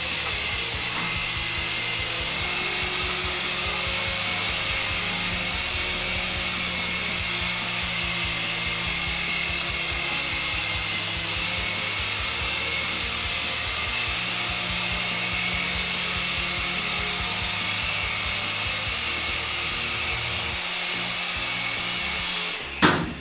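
Syma S107G toy helicopter's small electric motors and coaxial rotors whining steadily in flight, with faint background music underneath. Near the end comes a single sharp knock, and then the whine stops.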